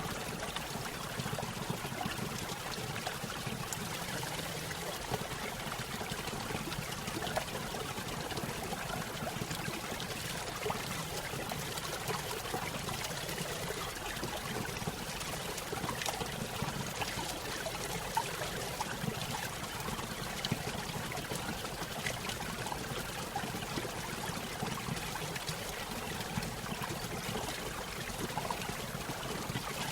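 Small stream running over a little waterfall: a steady pouring and splashing of water with a constant trickle.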